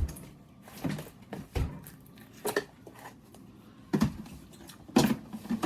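Dishes and utensils being handled in a kitchen: about seven separate short knocks and clatters over a few seconds, with quiet between them.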